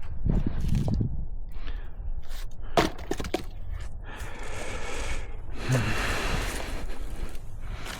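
A single sharp wooden knock about three seconds in, then a man breathing hard in two long breaths from the exertion of splitting wood.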